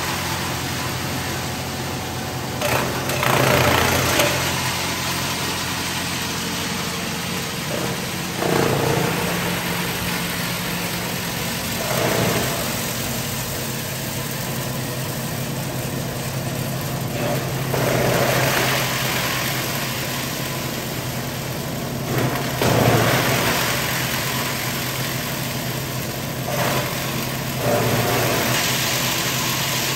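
Electric coconut-husk chipping machine running, its 5 HP motor humming steadily, with a louder rough chopping surge every four to five seconds as husks are fed into the blades and cut into small coir chips.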